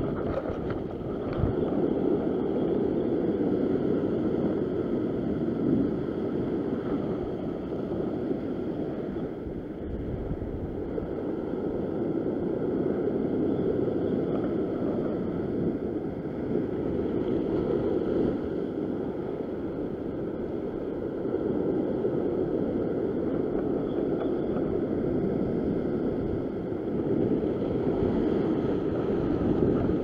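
Ocean swell surging and washing over a rock ledge, a continuous rush that swells and eases every several seconds, with wind on the microphone.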